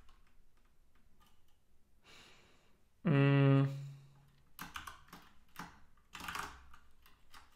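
Typing on a computer keyboard, scattered key clicks, with a short steady hummed "mm" from a man's voice about three seconds in, the loudest sound.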